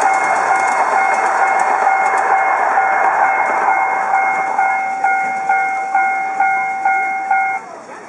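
Level-crossing warning bell on a miniature park railway ringing steadily, while the ride-on mini train clatters past over the rail joints. The train noise fades about halfway through. The bell then sounds as separate dings about twice a second and cuts off near the end, as the crossing clears.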